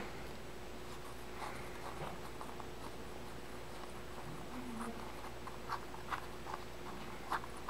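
Faint, scattered clicks and scrapes of small metal parts being handled: the float bowl and bolt of a small-engine carburetor being turned loose by hand. A faint steady hum sits underneath.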